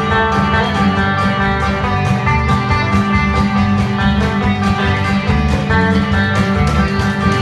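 Live country-style band playing a song, with guitar prominent over a steady bass.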